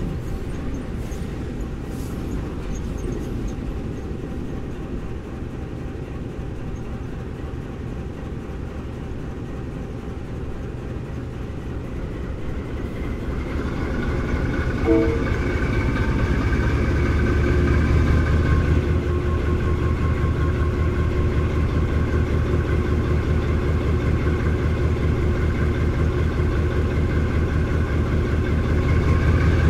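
Diesel freight locomotives hauling a long train, with a steady engine drone and rumble. It grows louder about halfway through and holds there, with a brief short blip of tones near the middle.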